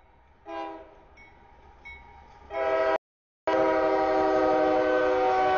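Diesel freight locomotive's multi-tone air horn blowing for a grade crossing: a brief, weaker blast about half a second in, a short loud blast about two and a half seconds in, then a long loud blast from about three and a half seconds on.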